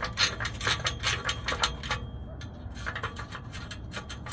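Ratchet wrench clicking rapidly as it backs out the bolts of an exhaust oxygen-sensor flange plate. There are several clicks a second at first, thinning out to a few scattered clicks about halfway through.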